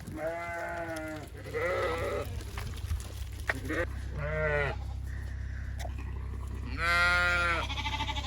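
Ewes and lambs bleating, about six separate calls from different animals, the loudest near the end, over a steady low hum.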